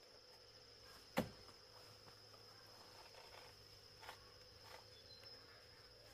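Steady high-pitched insect chirring in the background. A single sharp knock comes about a second in, then two faint clicks later.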